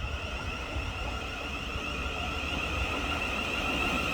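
Electric multiple-unit train at the station: a steady electrical whine over a low rumble, slowly growing louder.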